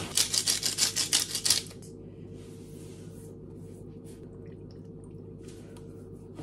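Kitchen handling sounds while meat is seasoned in a pan: a quick, loud rattling run of about a dozen clicks for a second and a half, then a few faint short shakes of a seasoning shaker, over a steady low hum.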